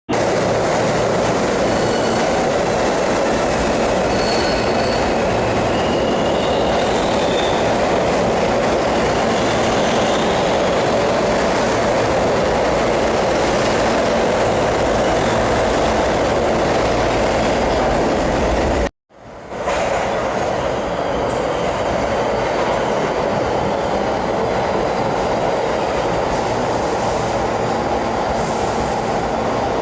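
New York City subway train on the BMT Broadway Line running through the station: a loud, steady rumble of wheels on rail, with faint wheel squeal in the first several seconds. The sound drops out completely for a moment a little past halfway, then the rumble carries on.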